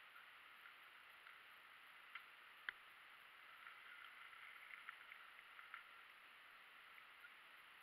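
Near silence: a faint steady hiss, with two soft clicks a few seconds in and a scatter of faint ticks in the middle.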